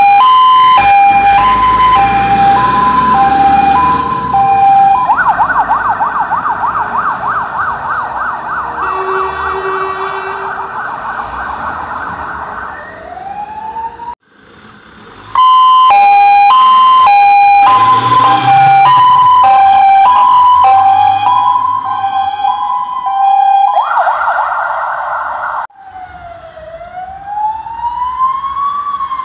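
Fire engines' electronic sirens, loud: a two-tone hi-lo changing pitch about twice a second, switching to a fast yelp. After a break the two-tone and a short yelp return. Near the end a slower wail rises and falls, from an approaching ambulance.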